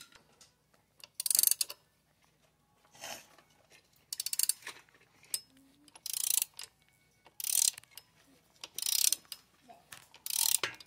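Hand ratchet wrench clicking in short bursts, about seven strokes a second or two apart, as a bolt is turned.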